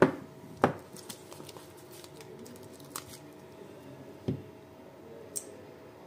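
Lithium-ion cells knocking on a stone tabletop as they are handled and stood upright, with light handling noise between. The loudest knock comes right at the start, another just after, and smaller clicks follow at about three and four seconds.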